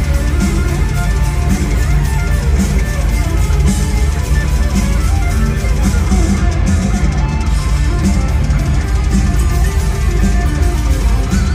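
Live instrumental hard rock played loud: an Ibanez electric guitar carrying the lead over bass and drums, heard through the PA from the audience.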